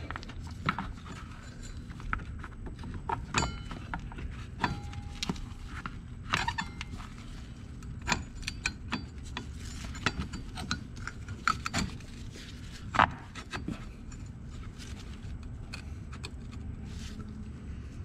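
Scattered small metallic clicks and clinks as a Honda Foreman 500 ATV's front brake caliper and new pads are handled and fitted back over the brake disc, with one sharper knock about two-thirds of the way through, over a steady low hum.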